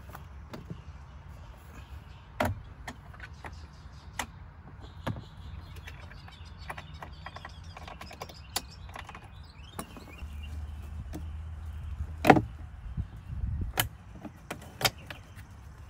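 Plastic glove-box retaining clips being pried loose with a screwdriver and the glove box handled: scattered sharp clicks and knocks, the loudest about twelve seconds in, over a low background rumble.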